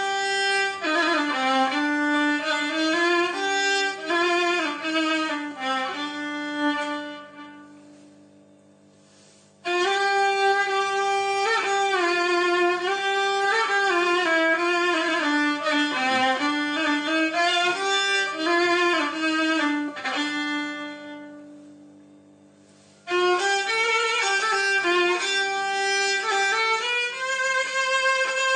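Solo violin playing unaccompanied melodic phrases in maqam Bayati, with notes sliding into one another. Twice a phrase ends on a held note that fades away before the playing starts again, once about a third of the way in and once about two-thirds in.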